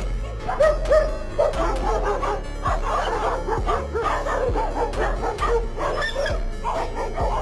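A dog giving many short, pitched calls over background music with a steady low beat.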